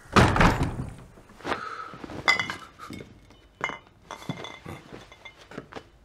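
A heavy thud, then a run of knocks and clinks of glass and crockery, one clink about two seconds in ringing briefly, dying away to small clicks.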